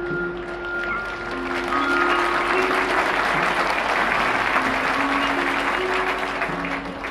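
Audience applauding in a stadium, swelling about a second and a half in and easing off near the end, over a marching band's soft held notes.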